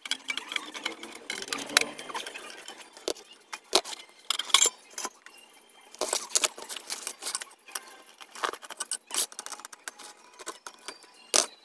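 Screwdriver and sheet-metal power-supply casing being worked by hand as the cover screws come out and the case is opened: irregular metallic clicks, scrapes and clinks.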